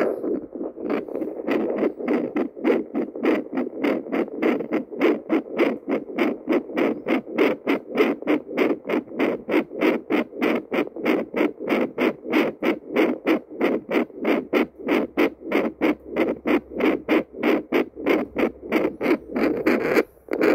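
Handheld Doppler heartbeat monitor playing pulsing blood-flow whooshes through its speaker as the probe is held on the skin: a fast, regular train of beats, several a second, broken off briefly near the end.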